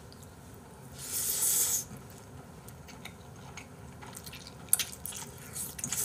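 A person slurping up a mouthful of jjapaghetti (black bean sauce instant noodles) about a second in, then chewing, with a few short sharp clicks near the end.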